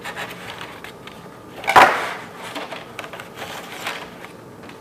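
Hands working over a foam carving block: a single sharp knock a little under two seconds in, with light clicks and paper rustling as the pinned paper fish pattern is pulled up off the foam.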